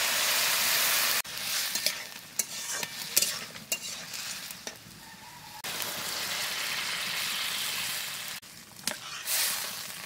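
Chopped bottle gourd sizzling in hot oil in a metal wok. The sizzle cuts off sharply about a second in. Then the pieces are mixed by hand, with scattered clicks against the pan, and water is poured in with a steady hiss lasting a few seconds.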